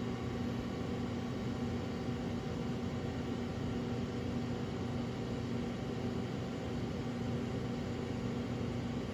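Steady mechanical hum with even hiss, unchanging throughout, like a fan or air-conditioning unit running in a room.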